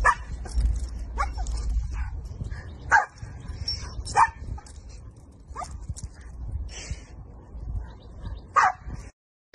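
A dog on a leash giving about six short, sharp barks and yips spaced a second or more apart, over a steady low rumble.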